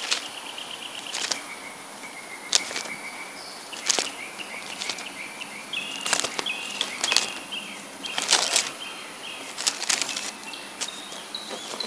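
Bible pages being leafed through: irregular papery rustles and flicks, with thin high chirping tones behind them.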